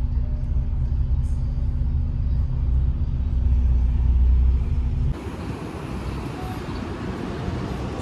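Double-decker bus engine running with a steady low rumble, heard from on board. About five seconds in it cuts off abruptly to even street traffic noise.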